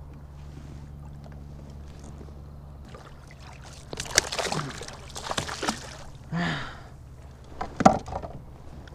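A low steady hum, then from about four seconds in a couple of seconds of splashing water as a small dogfish thrashes while being handled at the side of a kayak. One sharp knock comes just before the end.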